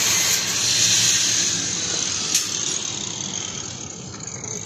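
A loud, even hiss that slowly fades, with one sharp click a little past halfway.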